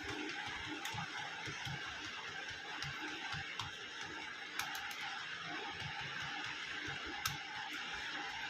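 Typing on a Portronics Bubble wireless keyboard: irregular key clicks over a steady background hiss.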